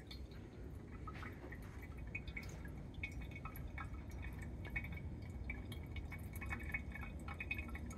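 Faint liquid dripping and trickling, scattered small drips throughout: rinse water carrying fine gold flakes running through a cotton filter.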